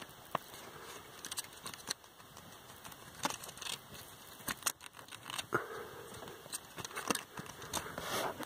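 Scattered light clicks and knocks of a metal engine-mount bracket being handled and fitted by hand, with a few brief rustles between them.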